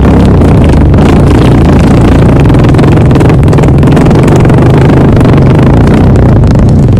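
One long, loud fart with a steady low buzz, held without a break.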